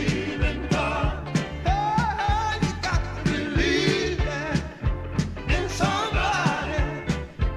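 Recorded soul song playing: a singer over a bass line and a steady drum beat.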